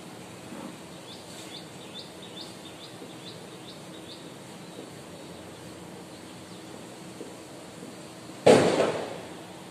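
A sudden loud bang about eight and a half seconds in, dying away over about a second, over a steady background hiss. Before it, in the first few seconds, comes a run of about nine short high chirps or squeaks.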